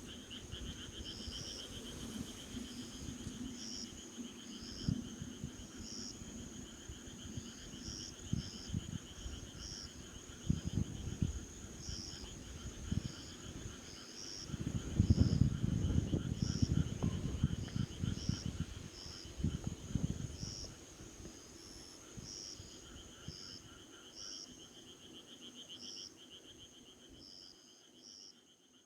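Night chorus of insects: a steady high trill, a lower pulsing trill, and short chirps repeating about once or twice a second. Low rumbling swells rise over it, loudest about halfway through, and the sound fades out at the end.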